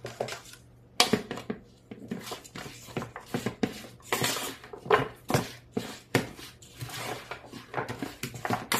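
A spatula stirring and tossing raw carrots, broccoli and mushrooms with olive oil in a large bowl: irregular scraping and clattering against the bowl, starting about a second in.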